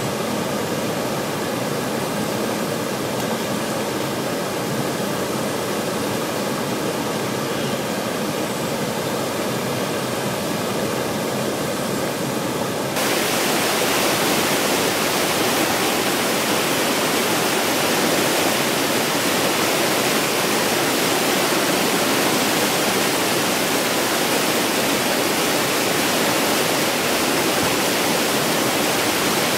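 Waterfall and whitewater rapids rushing steadily. About halfway through the sound becomes louder and hissier, as the view moves close to the churning whitewater.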